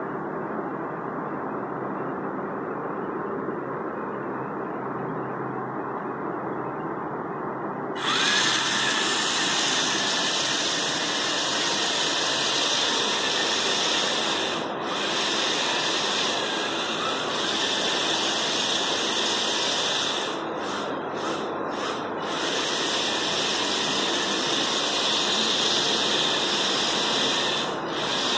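Small geared DC motors of a four-wheel-drive robot car whirring steadily as it drives. The whir gets louder and brighter about eight seconds in, then dips briefly a few times later on.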